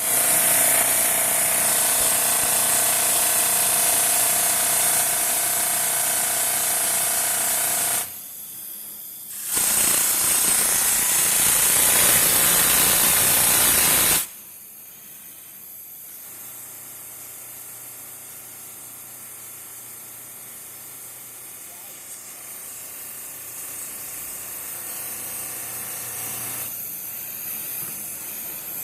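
CNC polishing machine working an outer surface: a loud, steady hiss with a constant whine, dipping briefly about eight seconds in. About fourteen seconds in it drops sharply to a much quieter low hum with faint hiss.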